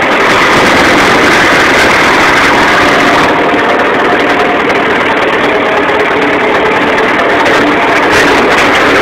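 Massey Ferguson 35 tractor engine running loud and steady as it tows a sledge through snow.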